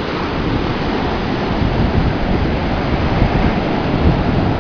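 Steady surf and wind noise, with wind buffeting the microphone in a rumbling, uneven low rush.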